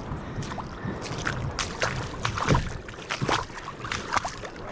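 Water sloshing and splashing in uneven strokes as a plastic fishing kayak is dragged on foot through shallow, muddy water.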